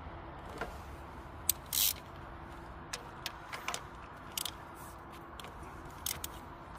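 Sharp, irregular metallic clicks and clinks, about ten of them with one louder rattle near two seconds in, over a low steady hum: hand tools working at a spark plug in an engine bay.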